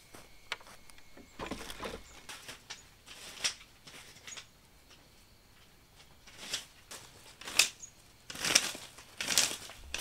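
Footsteps in sandals on dry leaves, twigs and grass, a step about every second, louder and more regular in the second half.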